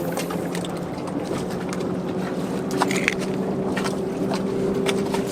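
Boat motor running with a steady hum, with scattered light clicks and knocks over it.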